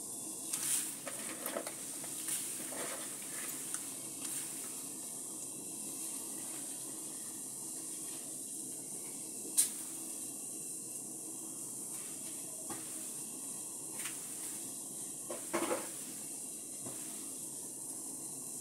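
A pot of vegetable soup simmering on a gas stove: a steady hiss of bubbling broth and burner flame. A few light knocks near the start as cabbage is tipped in from a plastic bowl, and one sharp tick about halfway.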